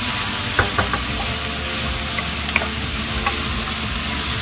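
Food sizzling in a hot pan as it is stir-fried: a steady frying hiss with a handful of sharp clicks of a utensil against the pan.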